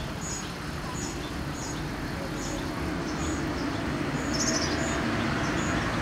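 Small finches calling: a short high chirp repeated about every three-quarters of a second, then two brighter jingling bursts of notes in the second half, over a steady low rumble of background noise.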